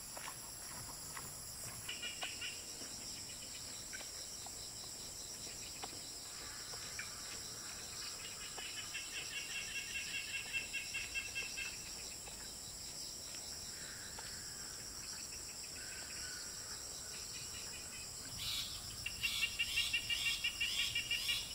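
Chorus of insects chirping: a steady high-pitched trilling throughout, with louder bouts of rapid pulsed chirping coming in a few times, the loudest near the end.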